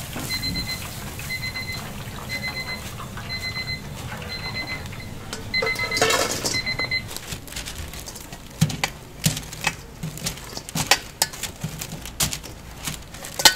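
Electronic timer beeping, a short burst of rapid high beeps about once a second, which stops about seven seconds in. Then sharp, irregular knocks and clatter.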